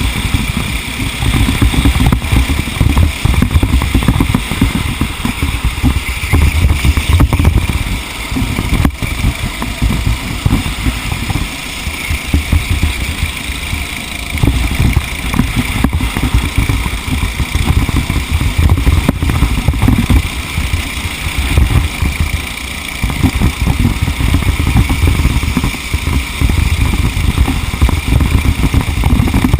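Small two-stroke TAG racing-kart engine running hard during a race, its loudness rising and falling every few seconds.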